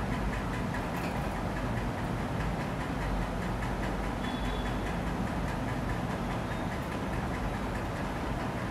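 Steady background crowd noise of a football stadium, an even murmur with no commentary over it.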